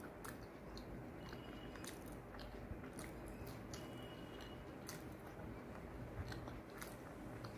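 Quiet close-up chewing of a soft, curry-soaked fried chhana (cottage cheese) fritter, with many small wet mouth clicks scattered irregularly.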